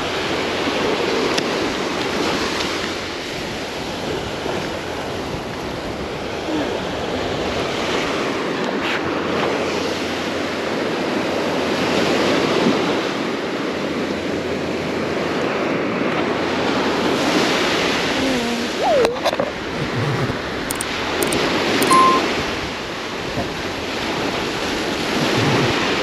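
Ocean surf breaking and washing up on a beach, swelling and easing every several seconds. A short beep sounds near the end.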